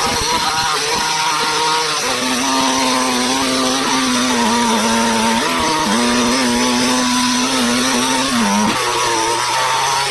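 Proyama gas chainsaw on an Alaskan chainsaw mill cutting through a pine log at high revs. Its pitch steps up about two seconds in, then holds steady apart from two brief dips. The chain is dull, grinding the wood to powder rather than cutting chips.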